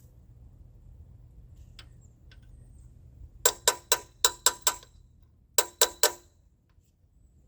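Metal hand tools clinking: two quick runs of sharp, ringing metallic clicks, about six and then three, roughly five a second.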